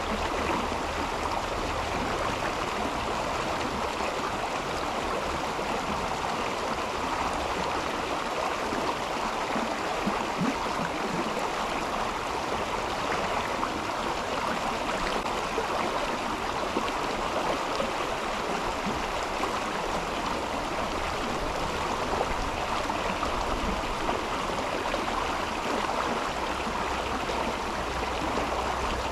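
Mountain river flowing steadily over stones, an even rush of water.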